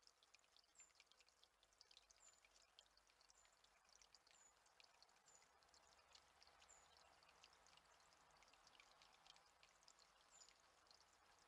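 Faint, high chirps and call notes of small birds, many short notes scattered throughout, over a soft steady hiss.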